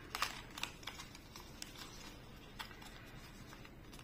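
Small crackles and clicks of a lipstick's plastic-wrapped packaging being picked open by fingers, busiest in the first second and then sparse.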